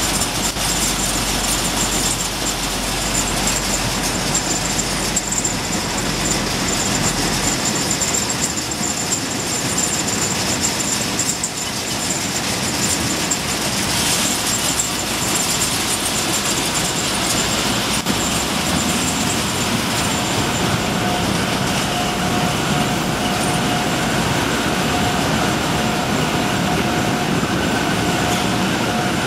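Potato harvesting machinery running steadily, tractor and harvester working together, with a constant high whine throughout. A low hum drops away about a quarter of the way in, and a second, lower steady tone joins about two-thirds of the way through.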